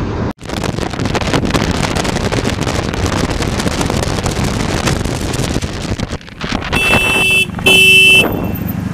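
A motorcycle is riding in traffic, with wind rushing over the microphone and the engine running under it. Near the end a vehicle horn gives two blasts of about half a second each, close together; they are the loudest sound.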